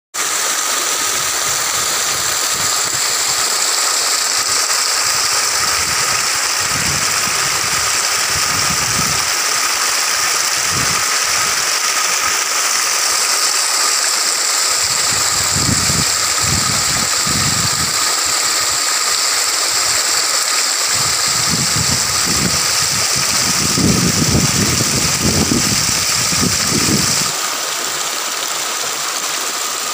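Water rushing over a small rocky waterfall in a shallow stream: a steady hiss, with irregular low rumbling that comes and goes and stops a few seconds before the end.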